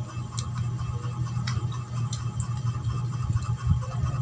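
A person drinking water from a glass, with a few faint clicks, over a steady low hum.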